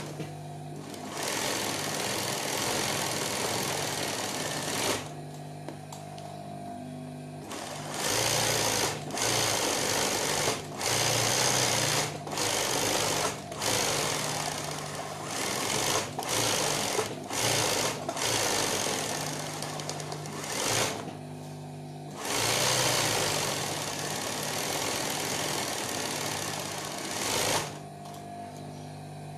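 Industrial sewing machine running fast in free-motion embroidery, starting and stopping: a run of stitching, a pause, a string of short bursts, then another long run, stopping near the end. A steady low motor hum carries on through the pauses.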